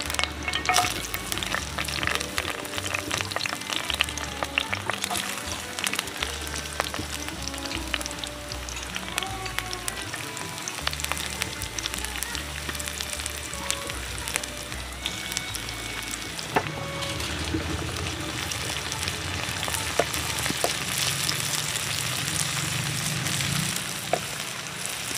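Hot cooking oil sizzling and crackling in a frying pan as lemongrass, green chilies, shallots, garlic and tomato fry in it, stirred now and then with a wooden spatula.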